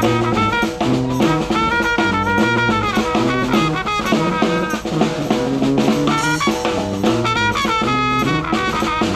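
Live New Orleans-style brass band music from a trio: trumpet playing the melody over a stepping sousaphone bass line, with a snare drum keeping a busy beat.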